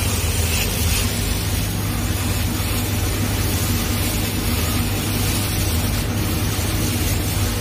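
Laser cutting machine running as its head cuts a gold mirror sheet: a steady low hum under an even hiss.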